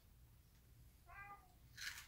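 Plastic snack wrapper crinkling briefly as it is handled near the end. About a second in there is a short, faint high call that dips in pitch at its end.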